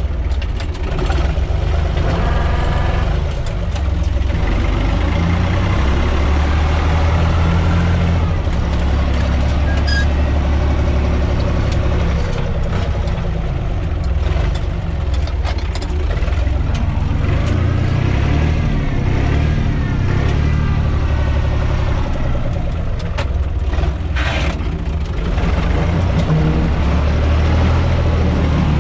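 Universal U445 DT 4x4 tractor's diesel engine running as the tractor drives over ploughed ground, heard from the driver's seat in the cab. The engine speed rises and falls a few times.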